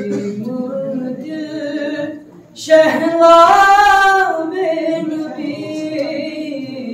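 A man chanting a naat unaccompanied into a microphone, in long held notes with melismatic wavering. He breaks off briefly about two and a half seconds in, then comes back louder on a high held, quavering note that slowly falls away.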